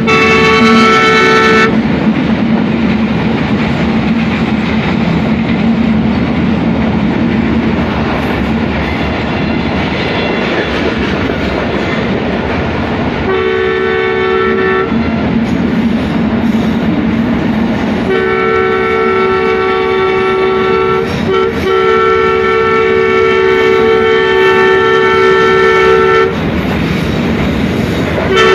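Diesel passenger trains running side by side at speed, with a steady rumble of wheels on the rails. A two-note diesel locomotive horn sounds over it: briefly at the start, a short blast about halfway through, a long blast of about eight seconds in the last third, and again right at the end.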